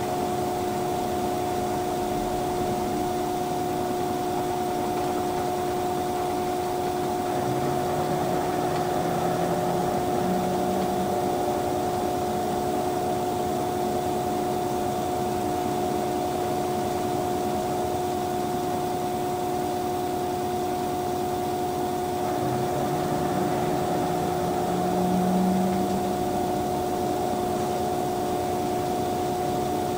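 LG VC2 AI DD inverter direct-drive front-loading washer-dryer in its wash phase with a duvet load: a steady machine hum, with the drum motor whining up in pitch twice, about eight and twenty-three seconds in, as it turns the wet load.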